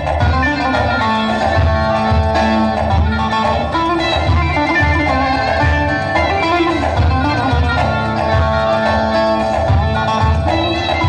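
Bağlama (long-necked Turkish saz) playing an instrumental passage of quick strummed and picked notes over a steady low beat.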